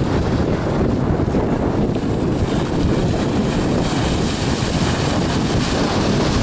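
Wind buffeting the microphone over the rush of waves around a sailboat in rough open sea, steady throughout.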